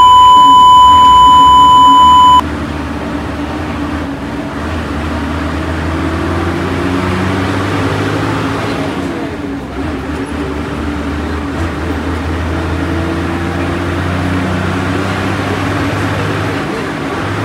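A loud, steady test-card beep tone for about the first two and a half seconds, cutting off suddenly. Then a bus's engine runs and the cabin rumbles steadily as it drives.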